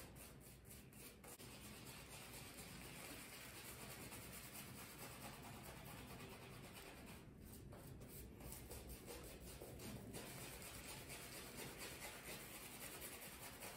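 Faint, steady scrubbing of an Omega boar-bristle shaving brush working lather over stubble on the face.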